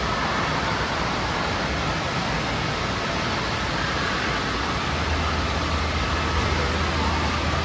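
Steady rushing-water noise of an indoor water park, with a low hum coming in about five seconds in.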